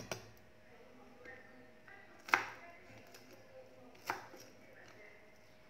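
Kitchen knife chopping fresh herbs on a wooden cutting board: a few slow, separate strokes roughly two seconds apart, each a sharp knock of the blade on the wood, the loudest about two seconds in.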